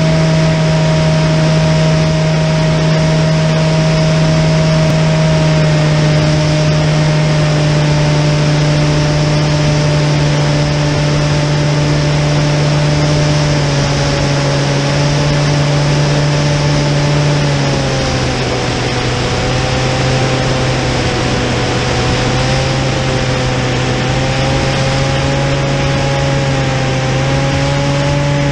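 Onboard sound of a radio-controlled model plane in flight: its motor and propeller drone at a steady pitch over a rush of wind, the pitch dropping a little about eighteen seconds in.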